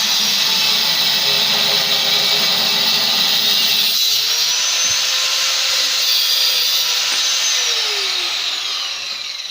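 Angle grinder cutting steel tube, a loud high whine that sags in pitch as the disc bites. Near the end it is switched off and spins down with a falling whine.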